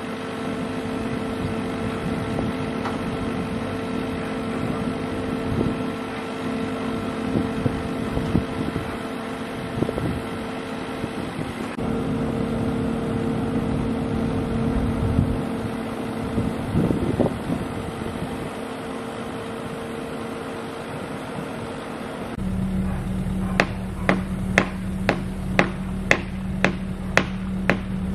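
Excavator's diesel engine running steadily while it holds a timber beam. Near the end, steady hammer blows on the timber frame, about two a second, over the engine.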